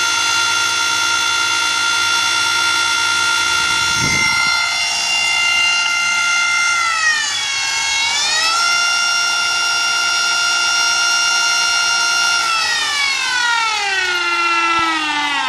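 Golden Motor 5 kW 48 V brushless electric motor driving an Evinrude 18 hp outboard lower unit in gear with the propeller spinning in air, giving a loud multi-pitched electric whine at a speed limited by its controller. The pitch dips briefly and comes back up about seven seconds in, then slides steadily down from about twelve seconds in as the motor winds down.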